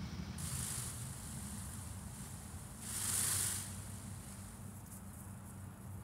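Wind rumbling on the microphone outdoors, with a short rustling hiss about three seconds in and a fainter one near the start.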